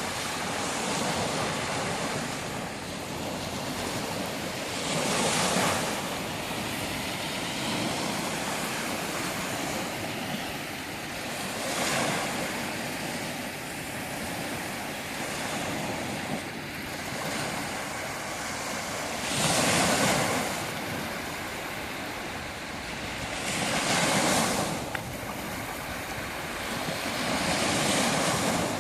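Sea waves breaking, each swelling into a louder hiss of surf and fading again, five times, over a steady wash of water.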